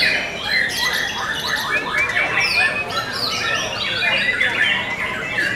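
Dense chorus of caged songbirds singing at once, a white-rumped shama's song among them: many quick whistles, chirps and harsh notes overlapping without a break.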